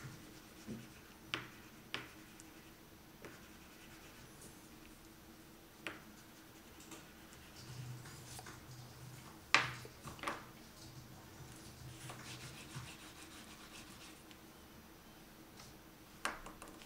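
Crayon rubbing on paper in scratchy strokes, with a longer stretch of steady rubbing in the middle. Several sharp clicks, the loudest about ten seconds in and another near the end, as chunky crayons are put down on and picked up from the cutting mat.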